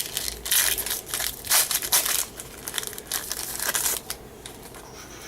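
Foil wrapper of a baseball card pack crinkling and crumpling in the hands, a busy run of rustles that dies down about four seconds in.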